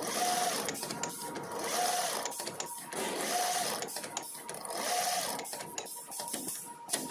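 A machine working in a regular cycle, about once every one and a half seconds, each cycle a swelling whoosh with a short tone, with scattered sharp clicks between.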